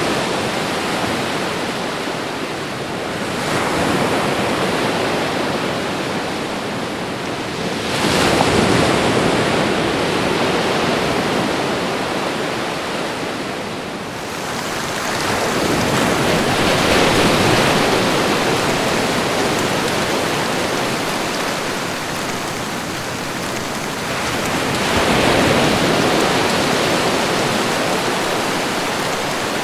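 Loud rushing storm noise, wind and water without any distinct strokes, swelling and easing about four times.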